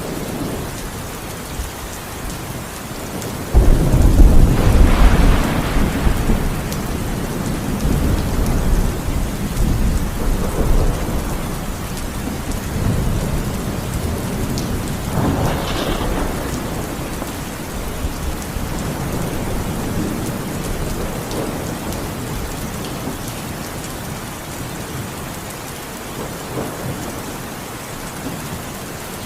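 Heavy rain falling steadily, with thunder: a sudden loud clap about three and a half seconds in that rolls on as a deep rumble and fades over several seconds, then a second, weaker rumble around halfway through.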